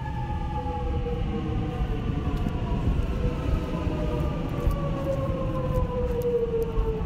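Alstom X'Trapolis electric train's traction motors whining in a slow falling pitch as the train slows, over a steady low rumble of wheels on track.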